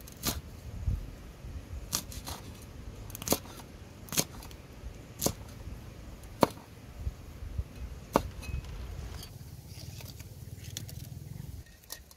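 Cleaver chopping red chillies on a wooden chopping board: sharp knocks of the blade on the wood, about one a second, stopping after about eight seconds.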